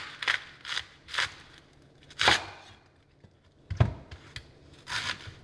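Chef's knife cutting around the core of a head of green cabbage: a handful of crisp crunches as the leaves split, the loudest about two seconds in, and a dull knock on the wooden cutting board near four seconds.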